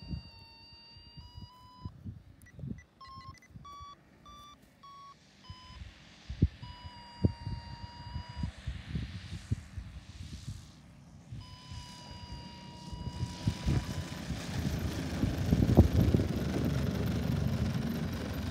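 Electronic beeping from a radio-control transmitter's telemetry variometer: a high tone in long and short beeps that steps up and down in pitch as the towed glider climbs. Over the last few seconds a low rushing noise grows louder and drowns it out.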